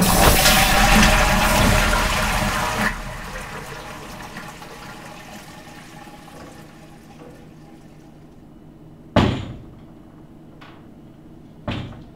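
Public-restroom toilet flushing: a loud rush of water starts suddenly, holds for about three seconds, then fades away. Two sharp bangs follow later, the first louder.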